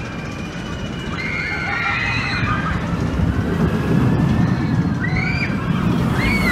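Mack bobsled coaster cars rumbling along the trough track, getting steadily louder as they approach, with high wavering squeals over the rumble in the second half.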